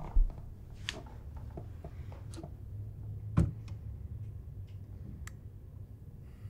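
Low steady hum with a few knocks and clicks: a heavy low thump just after the start, a sharp knock about three and a half seconds in, and several lighter clicks between.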